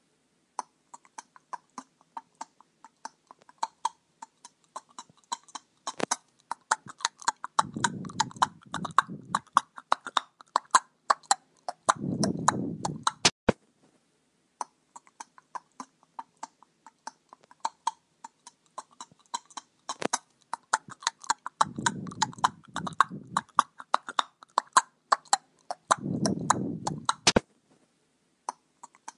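Horse grazing: rapid, irregular crunchy clicks of grass being torn and chewed, with a few low breathy snorts. The same stretch of about fourteen seconds plays twice.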